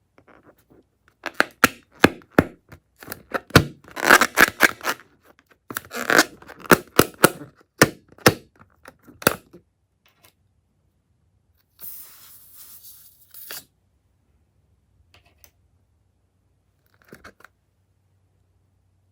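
Hands working balloons and slime ingredients: a run of sharp clicks, cracks and crackles for several seconds, then a short hiss about twelve seconds in, and a few faint ticks near the end.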